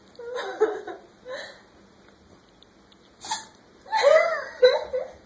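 A cat sneezing in a run of short, sharp bursts, several in a row.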